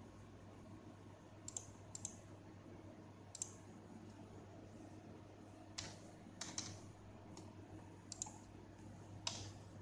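Computer mouse clicking: about eight short, sharp clicks at irregular intervals, some in quick pairs, over a steady low electrical hum.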